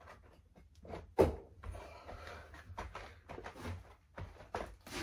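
Metal shower pan netting rattling and scraping as it is pressed and formed by hand against the concrete floor, with scattered light clicks and one sharp knock about a second in.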